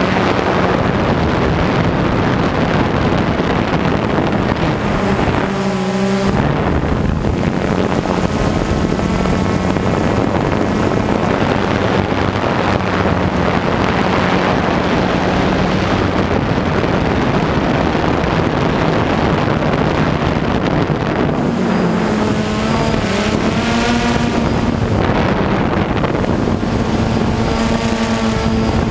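Drone's electric motors and propellers, recorded by its own onboard camera: a loud, steady hum with wind rushing over the microphone. Its motor tones shift in pitch about six seconds in and again from about 22 seconds in.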